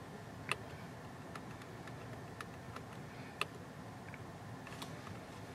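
Light clicks from the steering-wheel multifunction buttons of a VW Golf GTI being pressed to step through instrument-cluster menus. The clicks are irregularly spaced and the loudest come about half a second and three and a half seconds in, over a faint steady low hum.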